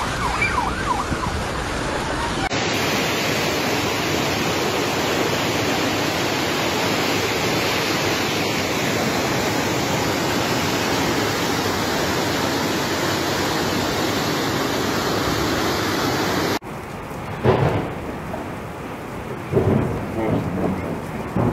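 Fast-flowing muddy floodwater rushing in a torrent: a loud, even rush of water that cuts off suddenly about 16 seconds in, leaving a quieter wash of water with a few short louder sounds. A few brief shouts are heard near the start.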